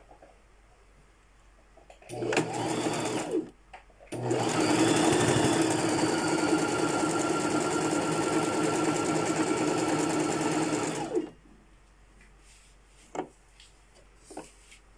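Brother BX3000 sewing machine stitching a seam through a scrap of fabric: a short run of about a second and a half, a brief stop, then a steady run of about seven seconds that stops suddenly.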